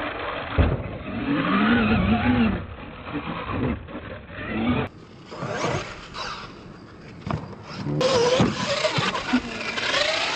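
R/C monster truck motors whining, their pitch rising and falling with the throttle as the trucks drive and jump, with a sharp thump about half a second in.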